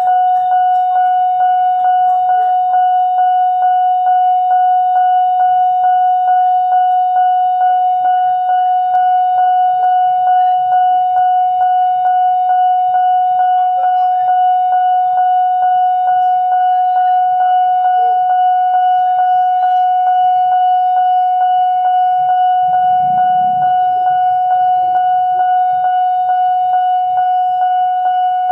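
Railway level-crossing warning siren sounding continuously: one steady high tone with overtones, pulsing evenly and quickly without a break.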